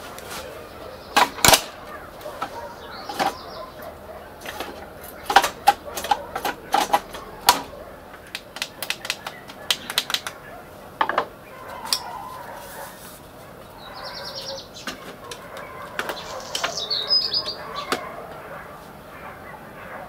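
Irregular sharp clicks and knocks of the dismantled Canon NP-3025 copier's plastic and metal casing being handled, while its control panel is pressed and a side panel is pulled off. Later on there are a few short, high, fluttering sounds.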